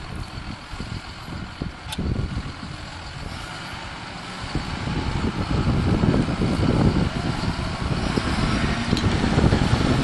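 John Deere 6630 tractor's six-cylinder diesel engine running under load as it pulls a reversible plough through the soil. It grows louder from about halfway through as the tractor comes closer.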